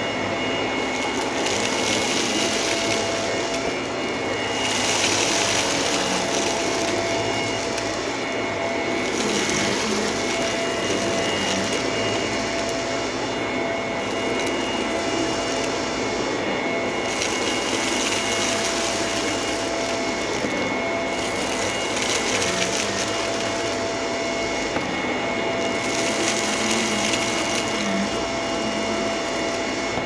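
Corded stick vacuum cleaner running on carpet: a steady motor whine under a suction rush that swells and fades every few seconds as it is pushed back and forth, picking up small scattered debris with a crunch.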